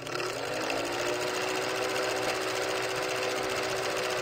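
Film projector running as a sound effect for a countdown leader: a fast, even mechanical clatter over a steady hum.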